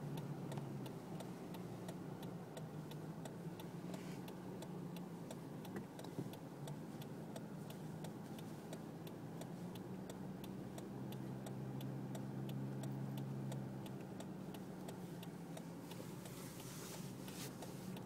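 A car's turn-signal or hazard flasher ticking steadily, a few even ticks a second, over a low steady hum inside the car's cabin.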